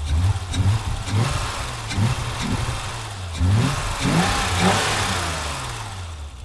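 A 1987 BMW 325is's 2.5-litre straight-six revved in a series of short throttle blips, then a bigger rev about three and a half seconds in, dropping back and fading away near the end. The engine is misfiring from a cold start.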